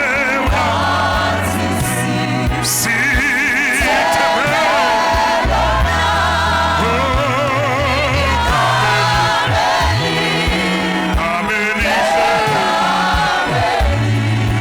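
A gospel choir singing with vibrato over instrumental accompaniment, with held bass notes that change every second or two.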